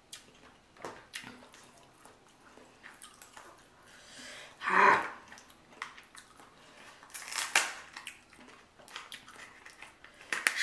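A person eating king crab legs close to the microphone: quiet chewing and small clicks, with a brief louder noisy sound about halfway through and another a couple of seconds later.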